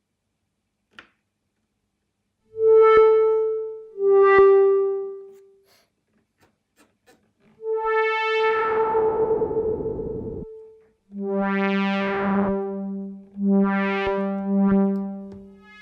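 Dave Smith Instruments Tempest synthesizer playing pad notes: two short notes, then a longer note with a hissy noise layer swelling over it for a couple of seconds, then several lower, fuller notes.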